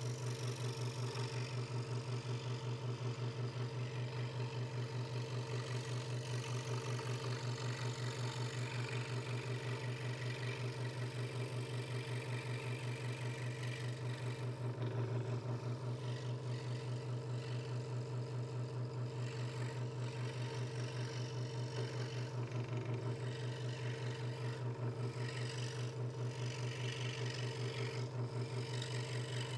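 Hegner Multicut 2S scroll saw running steadily with a fast, even pulse, its blade cutting through a thin wooden board.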